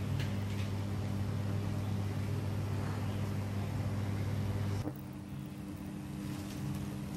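A steady machine hum that cuts off suddenly about five seconds in, giving way to a quieter hum on a different, higher tone.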